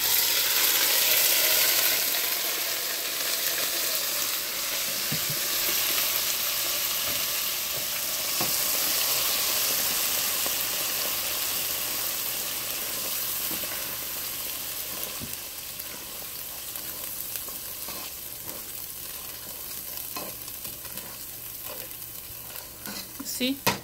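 Blended raw pepita (pumpkin seed) paste frying in hot palm oil and vegetable oil in a pan: a sizzling hiss that starts loud as the wet paste meets the oil and slowly dies down.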